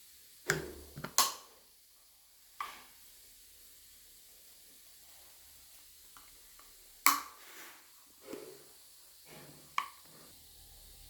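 Stanley Quick Flip vacuum bottle being handled: about six sharp clicks and knocks, irregularly spaced, the loudest about a second in and at about seven seconds.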